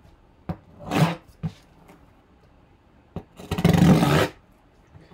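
A pocket knife cutting the plastic shrink wrap on a cardboard box: a few sharp clicks and taps, a short scrape about a second in, and a louder tearing scrape about a second long a little past the middle.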